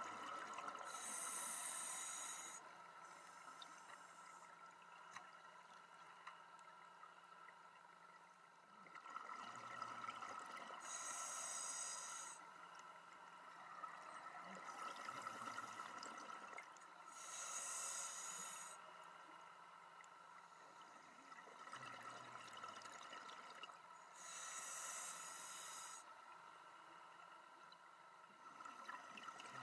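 A scuba diver breathing through a regulator underwater. Four loud bursts of exhaled bubbles come every six to seven seconds, with a softer hiss of the inhalations swelling between them.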